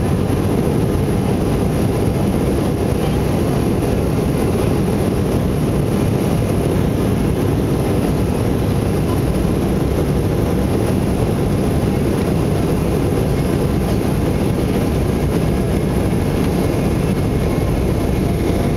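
Cabin noise inside an Embraer E175 on its takeoff roll: the jet's two General Electric CF34-8E turbofans running at takeoff power with the roll of the wheels, a steady, even noise heard from a window seat beside the wing.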